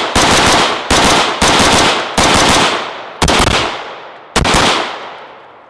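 AR-15 rifle firing six semi-automatic shots at an uneven pace, the gaps widening toward the end, each shot echoing and dying away.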